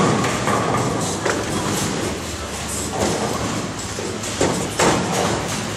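Bowling alley din of balls rolling and pins clattering on the lanes, with a few sharp thuds about three seconds in and twice more around four and a half to five seconds in.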